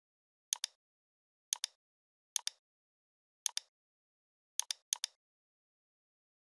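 Computer mouse left-button clicks, six in all at uneven intervals, each a sharp press-and-release double tick, with silence between.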